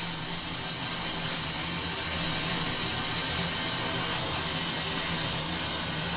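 A machine running steadily: a low hum under a broad, even hiss.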